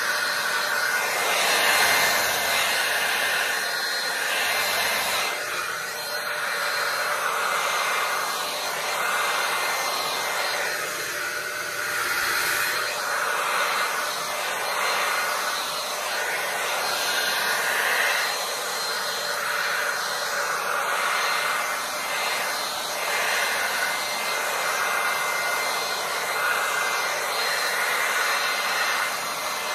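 Handheld hair dryer running steadily: a continuous rush of air with a thin steady whine, swelling and easing a little as it is swept along. It is blowing wet acrylic paint out across a canvas in a Dutch pour.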